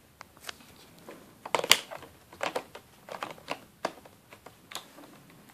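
Fingers clicking and tapping on the hard plastic underside of a Lenovo Y500 laptop around its removable battery: about a dozen short, sharp clicks in uneven succession, the loudest about a second and a half in.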